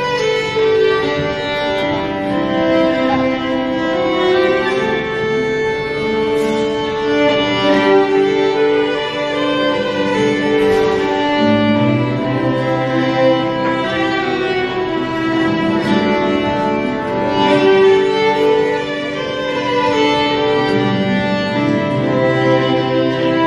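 Two fiddles and an acoustic guitar playing a slow old-time waltz: bowed melody and harmony in long held notes over strummed guitar chords. The guitar's low bass notes come in more strongly about halfway through.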